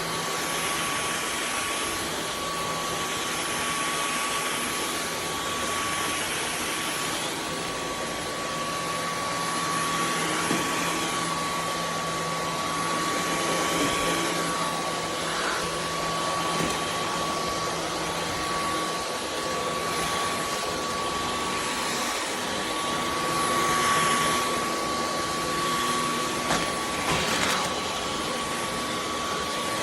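Dyson V15 Detect cordless stick vacuum running: a steady high whine over rushing airflow, swelling louder a few times, around the middle and near the end.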